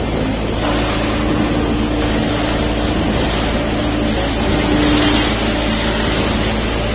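Three-ram hydraulic metal baler running: a steady motor-and-pump drone, with a humming tone that comes in under a second in and holds for several seconds, loudest around five seconds in.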